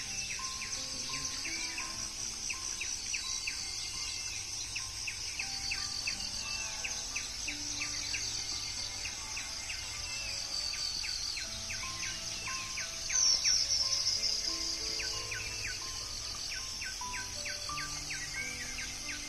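Steady high insect trilling and repeated bird chirps over soft background music with slow sustained notes. The high trilling swells louder briefly about thirteen seconds in.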